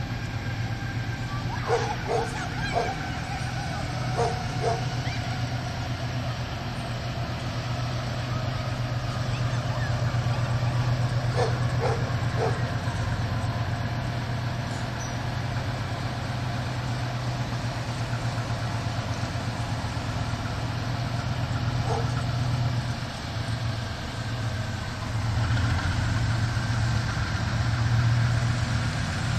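Diesel freight locomotive engine running in the distance, a steady low drone that grows louder in the last few seconds as the train approaches. A dog barks in short runs of two or three, about two and four seconds in, again around eleven seconds in, and once more later.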